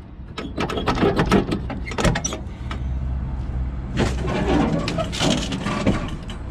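A quick run of metal clicks and clanks as the hood latch on an old dump truck is worked free by hand. About four seconds in comes a creaking, scraping stretch lasting about two seconds as the hood swings up.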